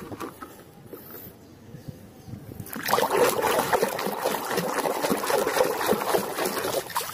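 Water sloshing and splashing in a plastic basin as a hand scrubs a plastic toy under the water, starting about three seconds in and going on steadily after that.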